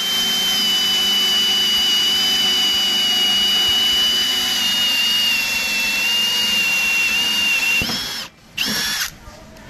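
Milwaukee M18 Fuel Gen 3 hammer drill running steadily as a 1-1/4 inch Hole Dozer hole saw cuts through a wooden board, with a high motor whine. About eight seconds in it cuts off, then spins up again for about half a second.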